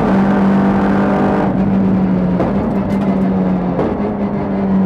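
Audi RS3 LMS TCR race car's turbocharged four-cylinder engine holding a steady high note under power, dipping slightly in pitch about two seconds in.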